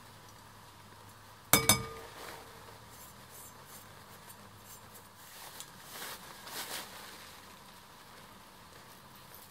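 A metal slotted spoon clinks twice in quick succession against a glass bowl, with a brief ringing, about one and a half seconds in. Faint scraping and cloth rustling follow as the dried indigo crust is scraped off the cloth.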